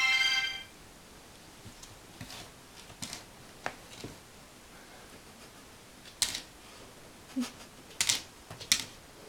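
A Shiba Inu indoors: a brief high whine at the very start, then scattered sharp clicks and taps, about half a dozen, such as claws on a hard floor.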